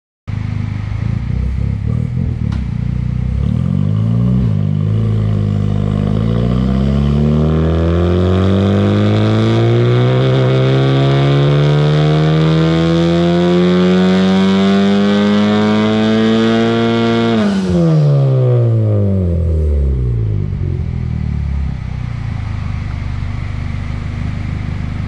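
Turbocharged Honda Civic Type R (FK8) four-cylinder running on E85 through a dyno pull. The revs climb steadily in one long sweep for about thirteen seconds. The throttle then snaps shut and the revs fall quickly back to idle.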